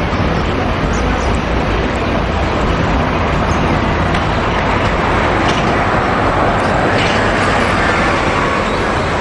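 Steady street traffic noise with a red double-decker city bus running as it drives past.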